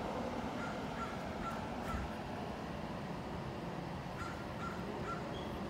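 A bird calling in two short series, four calls about half a second apart and then, after a pause, three more, over a steady background hiss.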